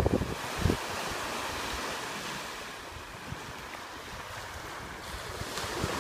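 Small sea waves breaking and washing up a sandy beach in a steady hiss, with gusts of wind rumbling on the microphone.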